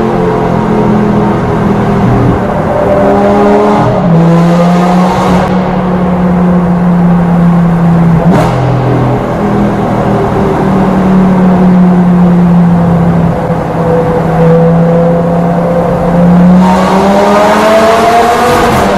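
Lamborghini Gallardo LP560-4's 5.2-litre V10 through an Armytrix valved exhaust, heard from inside the cabin while driving. The engine note holds fairly steady with a step in pitch about four seconds in, then a sharp crack about eight seconds in. Near the end the note climbs as the car accelerates hard.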